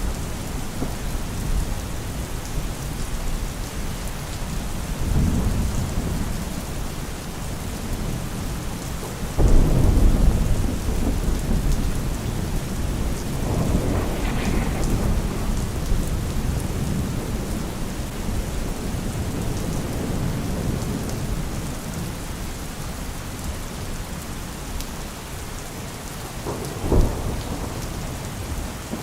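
Steady rain with rolls of distant thunder. Low rumbles swell and fade several times; the loudest starts suddenly about a third of the way in, and a shorter, sharper clap comes near the end.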